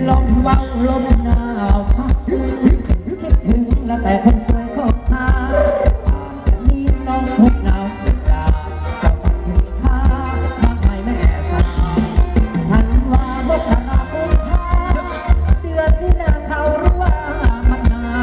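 Thai ramwong dance music from a live band: a steady, heavy drum beat under a melody that wavers up and down.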